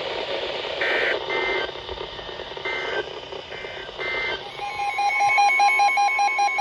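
Radio static with several short bursts of EAS digital data tones, the end-of-message code closing a weather-radio warning. About four and a half seconds in, a rapid pulsing electronic alert beep starts and keeps going.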